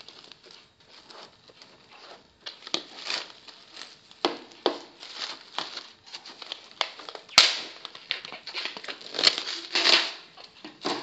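Plastic cling film being pulled off its roll, torn and crinkled over a bowl of dough to cover it while it rests: irregular crackling with a sharp snap about seven seconds in.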